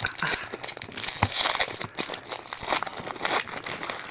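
Foil Yu-Gi-Oh booster pack being crinkled and torn open by hand: an irregular crackling rustle of the wrapper with scattered sharp clicks.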